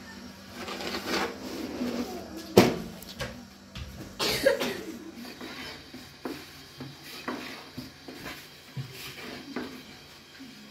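Long thin wooden rolling pin knocking and rolling against a wooden board as thin flatbread dough is rolled out: scattered wooden knocks and clicks, the sharpest about two and a half seconds in.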